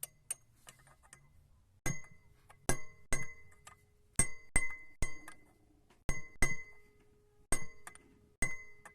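Hammer tapping a valve down into its seat in a heated cylinder head: about ten sharp metal-on-metal strikes, each leaving a brief ring, starting about two seconds in. The valve is being worked so that it seats evenly and sits flush.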